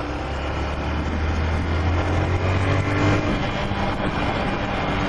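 Honda CG 125 Fan's single-cylinder four-stroke engine on its stock exhaust running while the bike is ridden, under steady rushing wind and road noise. A deep low rumble fades about three seconds in.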